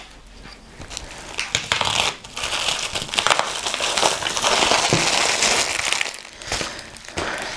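Packaging crinkling and crackling as it is handled, starting about a second in and easing near the end.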